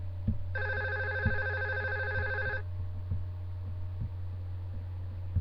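A telephone ringing: one ring of about two seconds, starting about half a second in, over a steady low hum and a few faint knocks.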